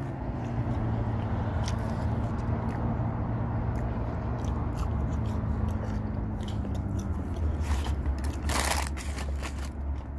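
Chewing and crunching a bite of spicy chicken McNugget, with many small crackly clicks, over a steady low hum. A brief rushing noise about eight and a half seconds in.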